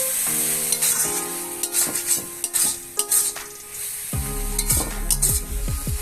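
Greens and potatoes sizzling in hot oil in a pan while a spatula stirs them, scraping and knocking against the pan many times.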